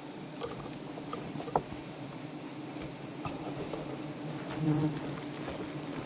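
Bees buzzing in a low, steady hum that swells briefly near the end, with a thin high-pitched steady tone behind it and a few sharp clicks.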